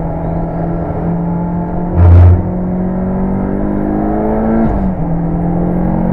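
Mitsubishi Lancer Evolution VI Tommi Makinen Edition's turbocharged four-cylinder engine pulling hard, its pitch rising, then dropping sharply at an upshift near the end and climbing again. A single loud, short thump about two seconds in.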